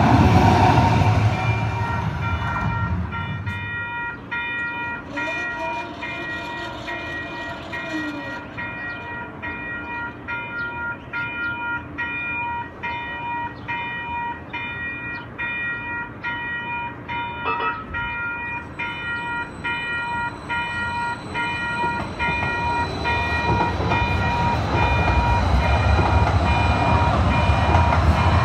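Level-crossing warning bell ringing in rapid, even strokes while the crossing is active. A C-Train light-rail train rumbles past at the start and fades. Near the end the rumble of another train crossing grows loud again.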